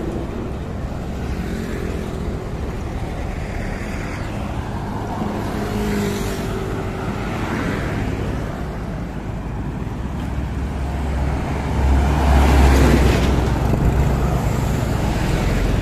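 Road traffic on a busy main highway: vehicles passing with a steady low rumble, one going by louder near the end.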